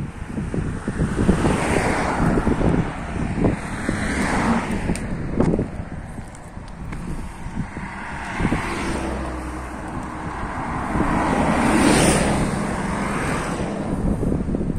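Road traffic passing: a car and a coach go by, tyre and engine noise swelling and fading several times, the loudest pass late on. Wind buffets the microphone.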